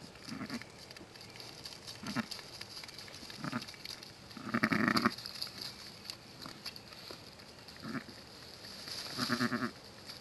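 A ewe making short, low-pitched calls to her newborn lamb as she licks it, the soft maternal bleats a ewe uses to bond with a newly born lamb. There are about six calls: the longest and loudest comes about halfway through, and a second long one comes near the end.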